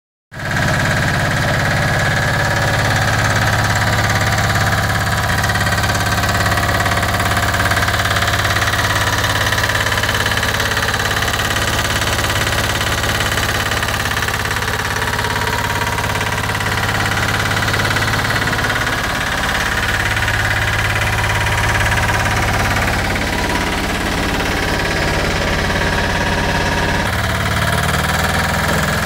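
Weber DVH 703-E walk-behind double-drum vibratory roller's small diesel engine running steadily, its sound shifting a little near the end.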